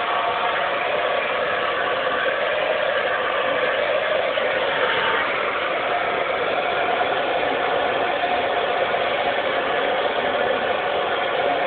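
Handheld hair dryer running on one setting: a steady rush of blown air with a faint motor whir, unchanging throughout.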